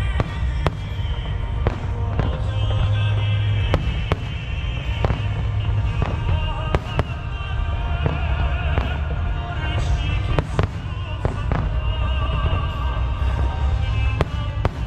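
Aerial fireworks bursting in frequent sharp bangs at irregular intervals, with music playing underneath and a deep, continuous rumble.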